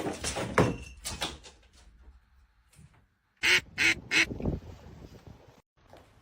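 Animal calls: a scatter of sounds at the start, then three short, loud calls in quick succession about three and a half seconds in.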